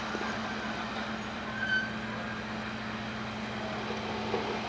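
A steady low hum, with one brief high chirp about a second and a half in.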